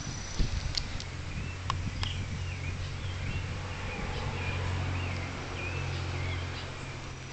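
Short wavering bird calls repeated over a steady low hum, with a few sharp clicks in the first two seconds.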